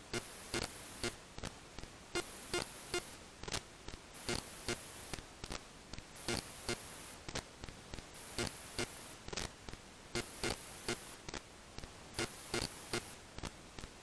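Background music: a looping electronic beat, with a high steady tone that sounds for about a second and comes back roughly every two seconds.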